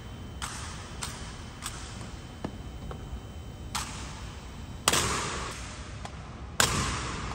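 Honor guards' rifle drill with M1 Garand rifles: a run of sharp clacks and slaps as hands strike the rifles, then two much louder strikes in the second half, each echoing on in the marble hall.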